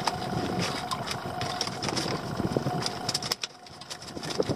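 Small boat's outboard motor idling with a steady hum that dips briefly near the end, over scattered clicks and knocks from a netted lobster pot being handled at the boat's side.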